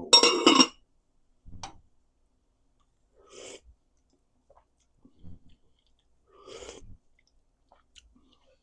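A man eating gumbo from a bowl: a short loud spoon-and-bowl sound at the start, then a few faint, scattered chewing and slurping sounds with quiet between.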